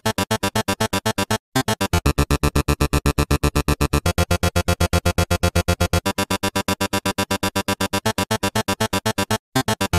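Electronic music: synthesizer chords chopped into rapid, even pulses, about eight a second, cutting out for a moment near the start and again near the end. A heavy bass comes in about two seconds in and drops out about six seconds in.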